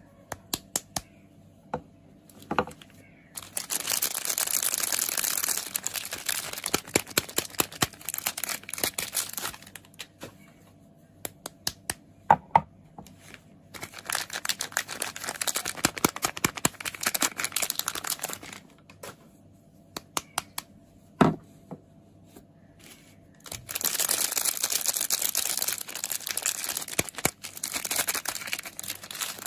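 Soap packaging being handled and unwrapped: several stretches of wrapper crinkling and tearing of a few seconds each, with sharp taps and clicks in between.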